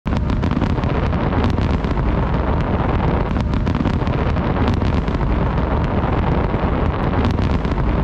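Steady wind rumble on the microphone outdoors, with many small crackling clicks running through it.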